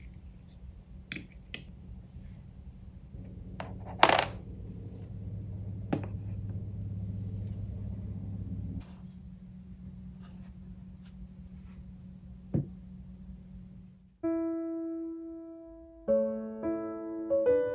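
A tealight in a glass cup and a crystal set down on a plastic desk tray with a few light clicks and knocks, one sharper clack about four seconds in, over a low steady hum. About fourteen seconds in, soft piano music starts.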